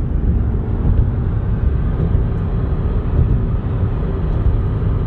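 Steady low rumble of a car driving on the road, the tyre and engine noise heard from inside the cabin.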